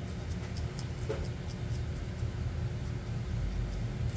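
Low, steady background rumble, with a few faint clicks scattered over it.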